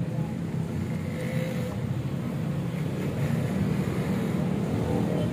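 Minerva R150 motorcycle's single-cylinder engine running steadily.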